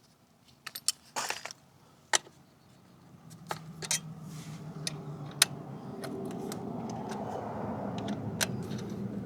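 Light metal clicks and clinks of a motorcycle chain guard being unbolted and taken off. From about three seconds in, a low steady hum slowly grows louder under them.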